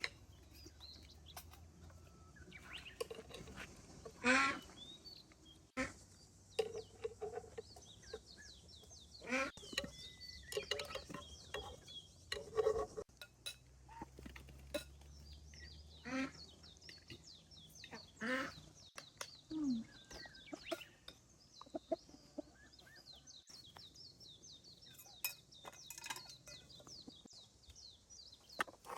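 Chickens clucking in short, scattered calls, with small birds chirping high and almost continuously.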